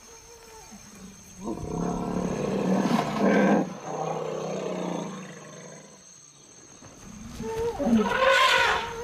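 Forest elephants calling: a long, loud roar starting about a second and a half in, then a second, higher call with gliding pitch near the end.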